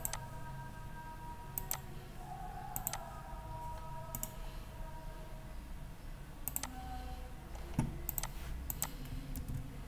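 Computer mouse clicks, about a dozen at irregular intervals, some in quick pairs, over a faint steady hum.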